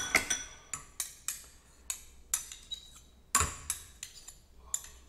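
Metal utensils clinking and tapping against a plate as a dish is assembled: about a dozen sharp, irregular clicks and clinks, the loudest about three and a half seconds in.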